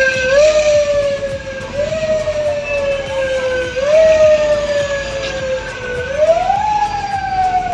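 A siren-like wailing tone that jumps up in pitch and slides slowly back down, repeating every one to two seconds, the last slide longer.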